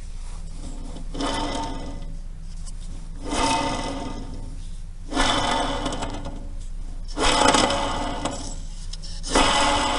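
Worn car wheel hub bearing turned in repeated spins, roughly every two seconds, each spin a rough, gritty rasping that swells and fades: the sound of a worn hub bearing.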